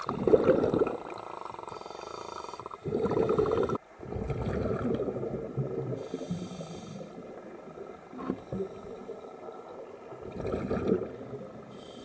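Scuba regulator breathing heard underwater: rushing, bubbling exhalations, loudest about a second in, again around three seconds in and near the end, with fainter bubbling and hiss between.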